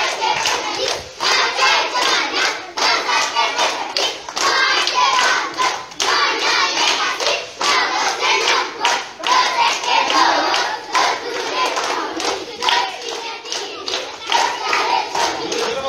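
A group of young children singing a game chant together while clapping their hands along with it, with repeated sharp claps through the singing.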